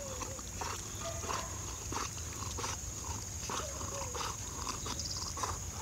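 Yellow Labrador retriever swimming hard on a retrieve, making short, repeated huffing breaths about once or twice a second, with a few brief faint whines.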